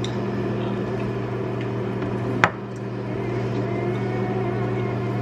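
Electric kitchen appliance running with a steady hum, with one sharp click about two and a half seconds in.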